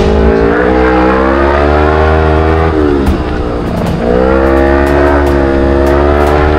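Kawasaki Ninja 250 parallel-twin motorcycle engine accelerating, its pitch climbing steadily. A little under three seconds in, the pitch falls away and stays lower for about a second, then climbs again.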